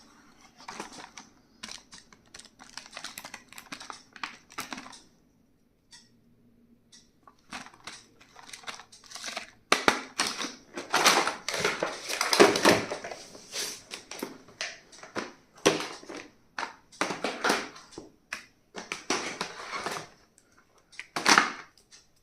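Stationery and its packaging being handled on a table: irregular clicks and taps mixed with bursts of rustling, with a short lull about six seconds in and the busiest, loudest handling about ten to thirteen seconds in.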